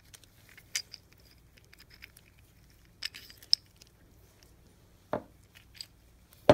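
Small metal parts of a disassembled pneumatic impact wrench's hammer mechanism clicking and clinking as they are handled and fitted together by hand: a few scattered sharp clicks over a faint steady hum.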